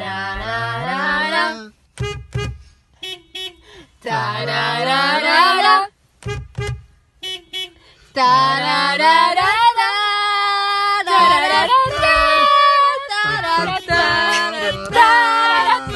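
Singing voices with long held notes that slide up and down, in short pieces broken by brief gaps.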